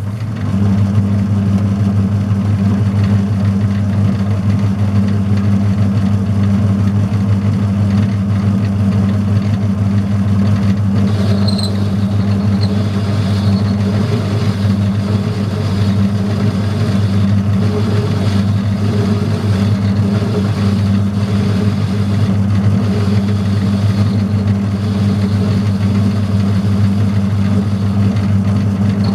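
Metal lathe running at a steady speed, turning a steel shaft between centres with the tool plunged into the cut; a loud, even motor-and-drive hum, with a faint high tone from the cut about eleven seconds in.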